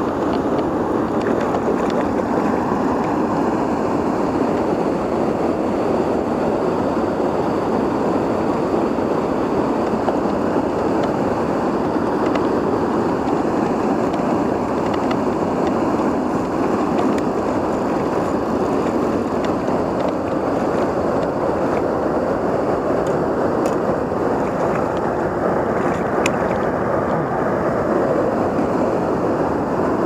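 Steady rush of flowing river water, an even noise that does not change, with a few faint ticks near the end.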